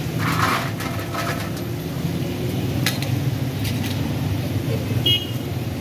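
Fried potato chips tipped from a steel wire strainer onto a perforated metal tray: a clatter of metal and chips about half a second in, then a few scattered clinks and taps, one with a short metallic ring near the end, over a steady low rumble.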